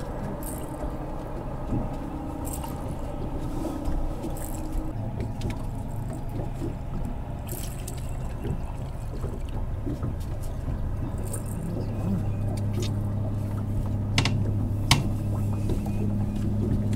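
Boat's outboard motor running steadily at trolling speed, a low hum whose tone grows stronger about two-thirds of the way through. Two sharp clicks come near the end.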